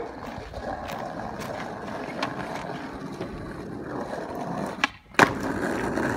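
Steady outdoor rumble, then a click and a sharp clunk about five seconds in as an SUV's rear swing gate is unlatched and swung open.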